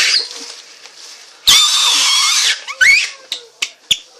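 Shrill, harsh squealing whistle made with a plastic bag held taut and blown on, lasting about a second from about a second and a half in, followed by a short rising squeak.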